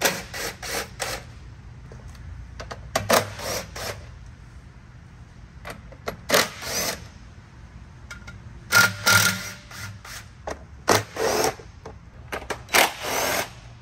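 DeWalt cordless drill-driver run in about six short bursts, each spinning up with a rising whine, backing out the screws that hold an outboard motor's lower side cowls.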